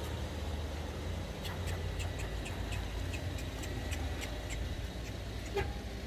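Low, steady rumble of a car idling, with a run of light ticks, about three a second, starting about a second and a half in.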